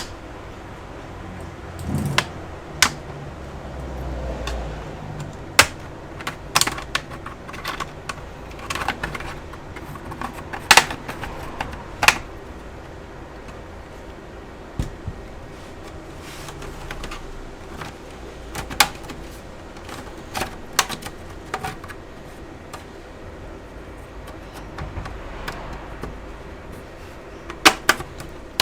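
Irregular sharp clicks, snaps and taps of tools and plastic as the bottom cover of an Asus M515 laptop is worked open, some with a short ringing.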